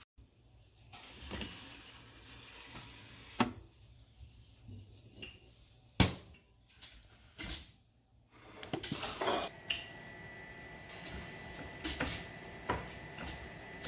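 Brava countertop oven being loaded and started: scattered clicks and knocks of the door and metal tray, with one sharp clack about six seconds in as the door is handled. From about nine seconds the oven runs with a steady hum and a thin, steady high tone while the pizza begins cooking.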